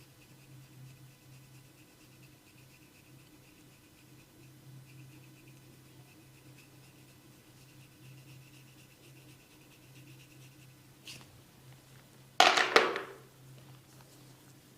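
Hands working over skin and hair during a head and neck massage: faint rubbing and scratching over a steady low hum. About twelve seconds in comes one loud, sharp double impact, a slap or crack of the massage.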